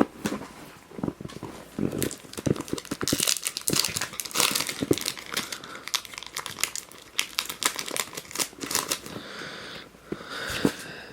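Foil Pokémon card booster pack wrapper being crinkled and torn open, with irregular crackling and rustling.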